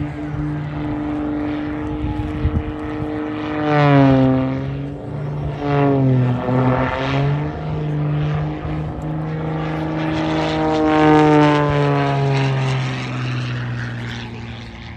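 MXS-RH aerobatic monoplane's piston engine and propeller running at high power through aerobatic manoeuvres. Its pitch swoops sharply down and back up about four and six seconds in, and again near the end as the plane sweeps past and changes power.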